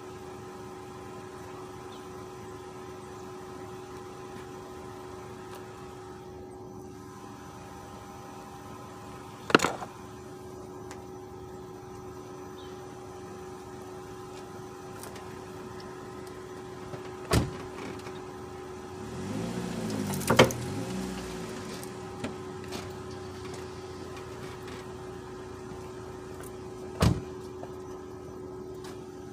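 A vehicle engine idling with a steady hum, broken by three sharp bangs about ten, seventeen and twenty-seven seconds in. Around twenty seconds in there is a louder two-second stretch whose pitch rises and falls.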